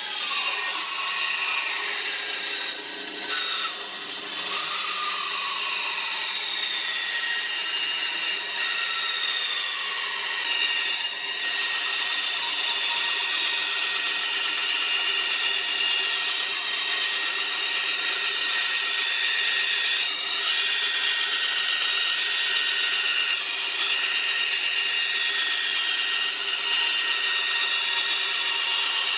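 RBS904 bandsaw blade cutting through a metal non-stick frying pan: a steady, high-pitched sawing with the pan ringing in several tones, and a few falling pitch glides in the first few seconds.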